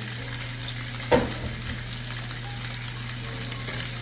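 Chicken frying in hot oil in a pan, a steady sizzle, with one sharp knock about a second in.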